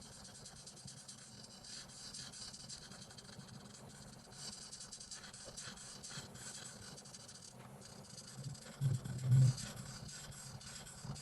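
Coloring strokes scratching softly across paper in a steady run of short strokes. A low dull thump about nine seconds in is the loudest sound.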